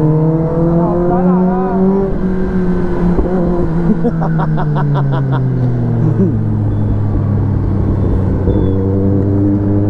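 Kawasaki ZX-10R inline-four engine running while riding in traffic. Its note rises slightly, then falls as the bike slows, settling to a steady lower note about six seconds in. A short rapid run of ticks comes about four seconds in.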